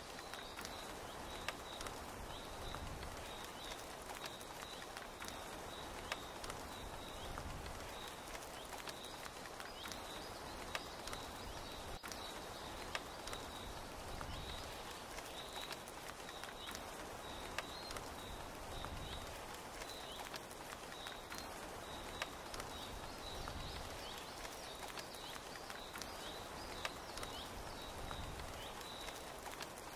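Steady rain, with sharp drips and taps scattered through it and a short high chirp from a small animal repeating a little more than once a second.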